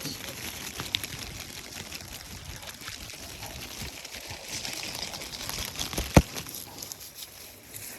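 Water trickling steadily, with a single sharp knock about six seconds in.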